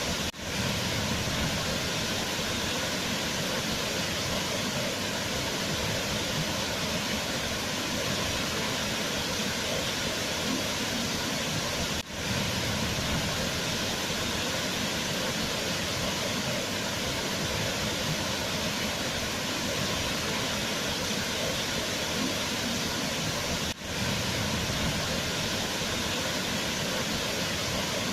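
Waterfall rushing in a steady, even roar of falling water, broken by three brief dips in level about twelve seconds apart.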